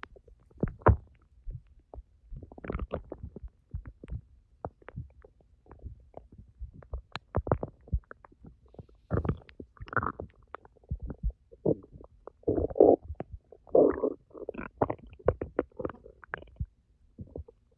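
Empty human stomach growling after ten hours without food: irregular small pops and clicks, with longer gurgles in the second half.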